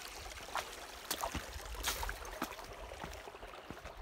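Footsteps crunching through dry fallen leaves on a forest trail, a step about every half second, over a steady background hiss with a low rumble.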